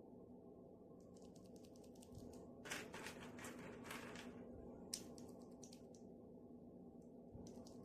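Faint, irregular clicking of mechanical keyboard switches, in a few short scattered runs over a low steady hum, loudest about three seconds in.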